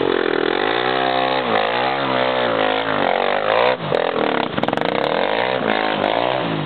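Sport quad bike (ATV) engine revving up and down repeatedly, with the pitch rising and falling several times, as it works through deep mud. There is a brief drop in revs about four seconds in.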